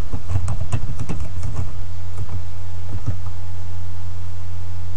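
Typing a password on a computer keyboard: a quick run of keystrokes in the first second and a half, then two or three more, over a steady low hum.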